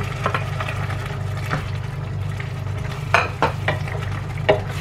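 A spatula stirring pieces of cuttlefish into a thick simmering chilli sauce in a stainless steel pan. Short knocks and scrapes against the pan come every second or so, most of them about three seconds in, over a low steady hum.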